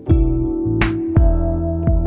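Background music: held notes over a steady drum beat, low kick-like thumps with sharp snare-like hits every second and a half or so.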